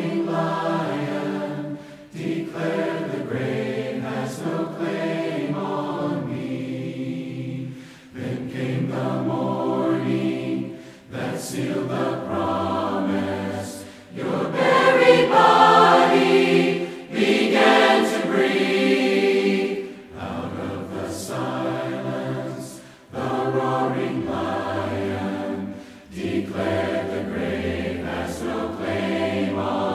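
Large mixed choir of men and women singing together, in phrases a few seconds long with short breaks between them, swelling loudest about halfway through.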